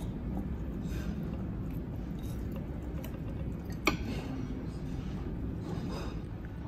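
Steady low restaurant room noise, with one sharp click about four seconds in as chopsticks knock against the soup bowl while lifting out a piece of tofu skin.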